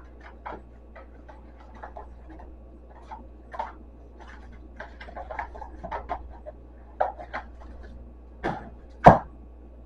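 Packaged goods and containers being handled and set down on a kitchen cupboard shelf: scattered light knocks, clicks and rustles at an irregular pace, with the sharpest knock about nine seconds in, over a faint steady low hum.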